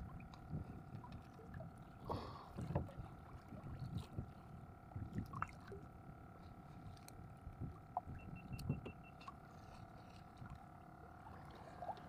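Faint knocks and clicks of a freshly caught grouper being unhooked by hand on a small boat, over a low irregular rumble of water against the hull and a faint steady hum.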